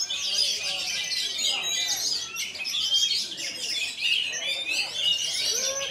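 Oriental magpie-robin (kacer) singing: a fast, unbroken stream of varied high chirps, trills and short whistled glides.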